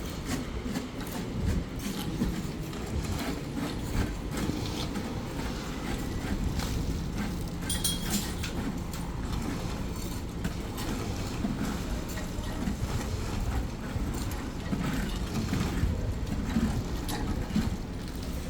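Construction site noise: a low rumble with scattered knocks and clatter, and a steady low hum from a motor in the middle and near the end.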